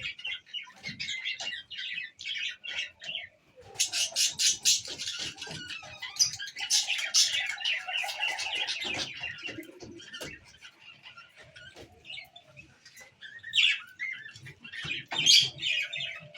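Many birds chirping and calling in quick, overlapping notes, thickest from about four seconds in and again near the end.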